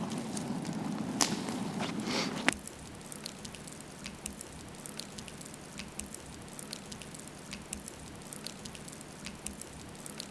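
Wood fire burning in a hollowed pine log, with scattered sharp crackles and pops. The sound drops abruptly about two and a half seconds in to a quieter bed with sparser crackling.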